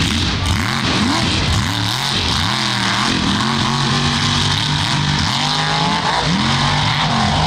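Mega truck engine revving hard on a dirt race track, its pitch climbing and dropping several times as the driver works the throttle through the turns.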